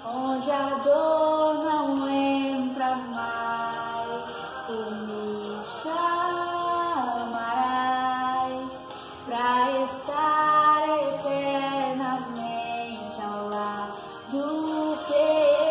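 A woman's solo voice singing a Portuguese gospel worship song, in long held notes that slide between pitches, phrase after phrase with short breaths between.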